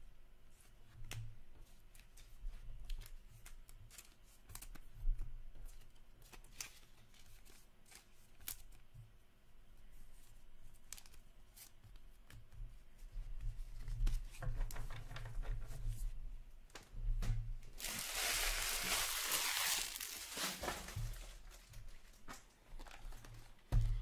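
Hockey trading cards handled and flipped through by hand, with small soft clicks and rustles. About eighteen seconds in come a few seconds of loud tearing and crinkling.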